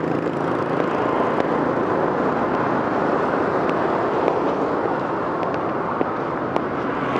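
Busy street traffic: a steady wash of passing vehicle engines and tyre noise.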